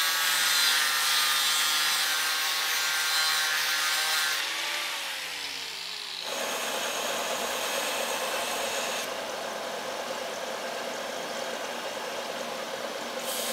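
Angle grinder cutting an old steel plane blade, its motor whining steadily under the hiss of the cut. About four and a half seconds in, the whine falls in pitch as the disc winds down. From about six seconds in there is a steady rough grinding noise of the blade worked on a belt sander.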